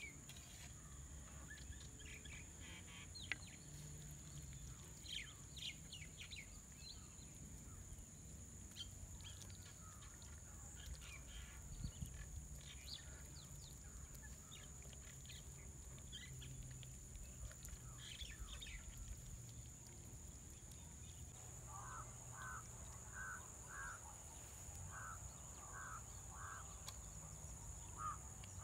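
Quiet rural outdoor ambience: a steady high-pitched insect drone with scattered bird chirps, and from about three-quarters of the way in a bird calling over and over with short calls about twice a second.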